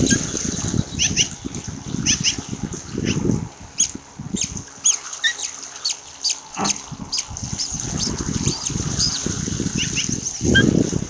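Ospreys giving many short, high chirping calls, one after another, over a loud, ragged low rumble from the nest camera's faulty, mangled audio.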